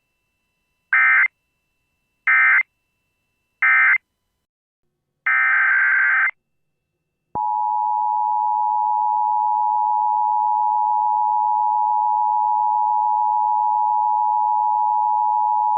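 Emergency Alert System digital data bursts, three short ones followed by a longer one, then the steady single-pitch 1050 Hz NOAA Weather Radio warning alarm tone for about nine seconds. The alarm tone marks the start of a warning broadcast, here a tornado warning.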